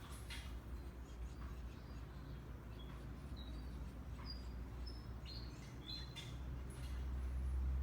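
Small birds giving a series of short, high chirps in the middle, over a steady low rumble that grows louder near the end.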